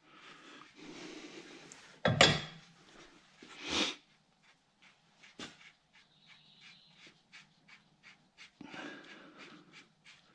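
A man breathing hard with effort, with two loud puffs of breath about two and four seconds in, then a run of light ticks, about three a second, as a wrench turns out the timing-chain tensioner of a BMW N62 V8.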